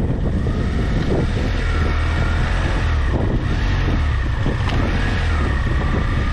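BMW F700GS parallel-twin engine running steadily while the motorcycle rides along a dirt track, with wind rumbling on the helmet-camera microphone.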